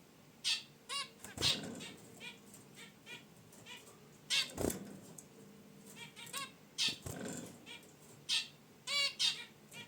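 Zebra finches giving many short, nasal, honking calls in quick scattered bursts. Three brief low thumps, about a second and a half in, halfway through and about seven seconds in, are the loudest sounds: wing flaps or birds landing in the cage.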